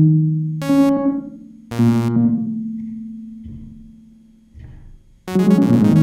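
Make Noise Strega synthesizer notes played from the 0-Ctrl touch plates and heard through 50 feet of corrugated tubing, which gives them a reverberant, doubled sound. A few pitched notes strike and decay, the last dying away over about three seconds. Near the end a loud, fast sequenced pattern starts abruptly.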